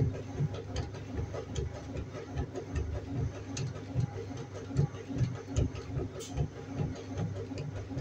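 Washing machine running: a steady low hum with uneven low thuds several times a second and light clicks and rattles over it.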